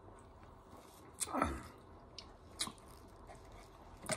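Close-miked mouth sounds of a woman drinking soda from a can: swallowing, with one louder sound falling in pitch about a second and a half in, and a couple of short clicks later.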